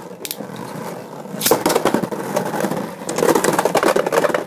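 Two Beyblade tops spinning and clashing in a plastic battle stadium: a rattling whirr of rapid clicks, with two louder stretches of clashing, about a second and a half in and about three seconds in.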